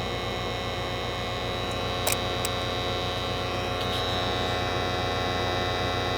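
Steady motor hum from a gas furnace during its startup sequence, before ignition, most likely the draft inducer running. Two short clicks come about two seconds in, and a thin high whine settles in about four seconds in.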